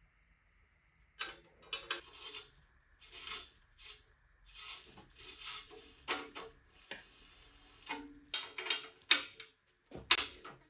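Small metal bicycle parts and tools being handled, clinking and scraping in irregular bursts, with two sharp knocks near the end.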